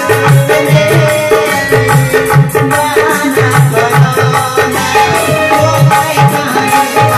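Dance music with a steady drum beat, about two beats a second, under sustained melody lines.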